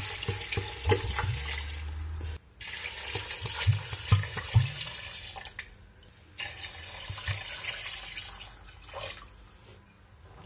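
Water poured from a glass bottle into a stainless steel pot of soaked chickpeas to cover them for boiling, in three pours with short breaks between them and a few low glugs in the middle one.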